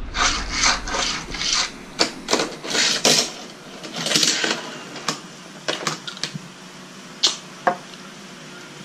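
Plastic toy car track being handled, with a run of short rubbing, scraping strokes about two or three a second, then scattered light clicks and taps.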